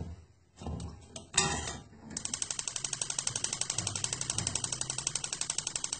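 A stove being switched on: a rapid, even clicking, about ten clicks a second, starts about two seconds in and keeps going. Just before it, a sharp clatter of wooden chopsticks against the steel pot.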